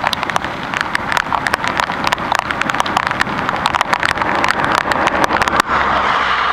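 Heavy rain, with a dense patter of drops striking close to the microphone over a wet rushing noise. About five and a half seconds in the patter stops abruptly and gives way to an even, steady hiss.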